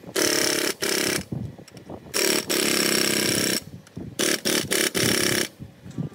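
Pneumatic impact wrench running on the wheel hub bearing bolts of a steering knuckle, in two bursts of about a second each, then three short blips near the end.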